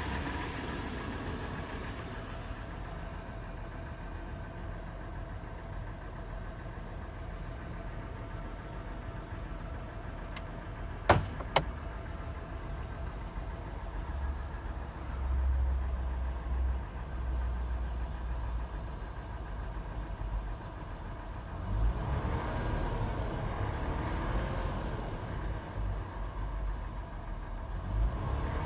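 Toyota FJ engine idling warm with a clattering, tapping sound, which the owner is trying to trace. Two sharp clicks come about eleven seconds in, and the engine runs fuller in the second half and starts to rev up at the very end.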